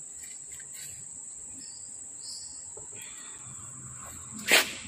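Crickets chirring in a steady high-pitched drone, with a short loud rustle near the end.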